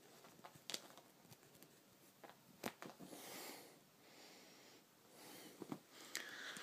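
Faint rustling of bedding and a few soft taps and clicks as a kitten scrabbles and plays on the bed, mixed with the handheld camera being moved about.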